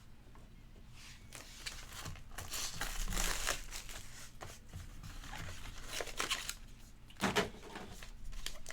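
Plastic packaging of a trading-card box being opened and handled, with irregular crinkling and rustling, loudest about three seconds in, and a sharper crackle about seven seconds in.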